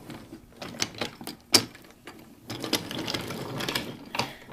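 Irregular small clicks and rattles, like objects being handled, with one sharp louder click about one and a half seconds in.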